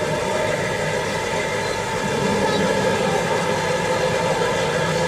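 Steady motor running noise from a radio-controlled construction model, a continuous hum that grows slightly louder about two seconds in.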